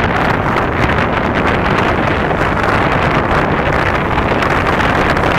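Steady, loud rushing of wind on the microphone, with no firework bang standing out.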